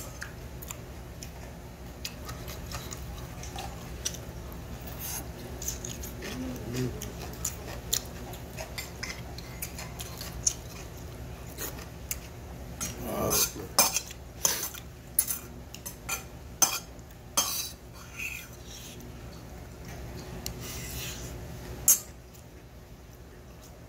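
Metal spoon clinking and scraping in a stainless steel bowl of barley bibimbap, with close-up chewing between spoonfuls. The clinks bunch together about halfway through, and one sharp clink near the end is the loudest.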